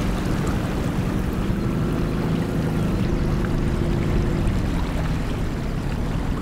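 Outboard motor running steadily as a PVC inflatable boat moves over the water, with a low rumble and a constant drone.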